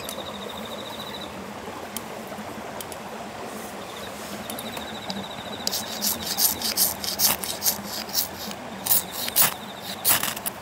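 Ferrocerium rod scraped hard with a striker to throw sparks onto wood-shaving tinder: about a dozen quick rasping strikes starting about halfway in. A faint high pulsing trill comes and goes behind it over a steady hiss.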